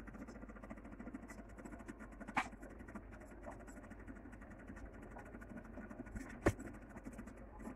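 Faint, quiet pouring of thick rice-flour batter from a pitcher into small plastic puto molds, with two light knocks, one about two and a half seconds in and one about six and a half seconds in.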